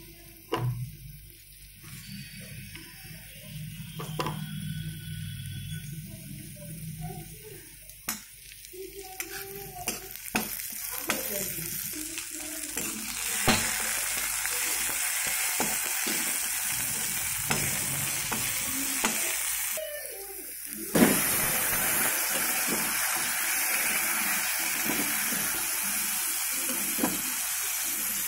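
Chopped onions sizzling in oil in an iron kadai while a metal spatula scrapes and clicks against the pan, the sizzling growing steadily louder about halfway through. Just before the end of the second third it briefly drops away, then comes a loud clank and the frying hiss returns, with raw chicken pieces now in the pan.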